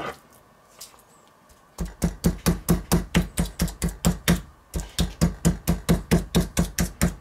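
Metal meat mallet pounding pieces of pork fillet flat on a wooden cutting board: one knock at the start, then after a short gap a steady run of blows about four a second, with a brief break just past the middle.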